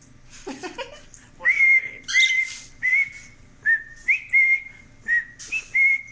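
A cockatiel whistles a tune: a brief rising chatter, then a run of about eight short whistled notes on nearly one pitch, some flicking up at the start.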